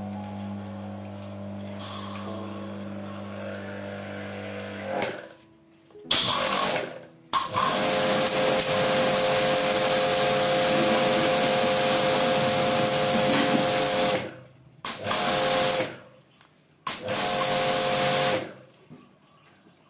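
Total TGT11236 1500 W, 100-bar electric pressure washer being tried out. Its motor hums steadily for about five seconds and then stops. The gun then sprays in bursts: a long spray of about seven seconds, then two shorter ones of about a second each, the sound cutting off sharply between them as the motor stops with the trigger released.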